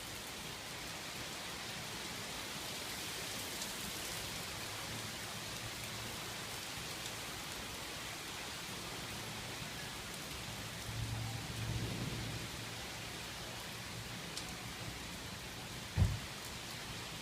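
Steady heavy rain falling at the tail end of a hailstorm. About eleven seconds in there is a low rumble lasting a second or two, and near the end there is a single sharp low thump.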